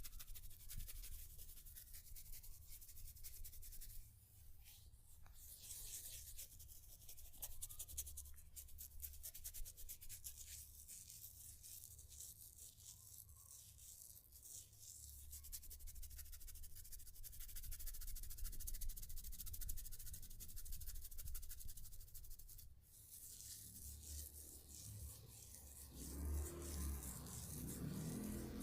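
Close-up rustling and scratching of hands working through hair and over the scalp in a head massage, a quiet, dry, continuous friction sound.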